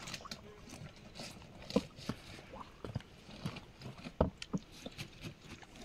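A hand rummaging in a shallow spring pool among stones and leaf litter: irregular small splashes, knocks and crunches, the sharpest about two seconds in and again just after four seconds.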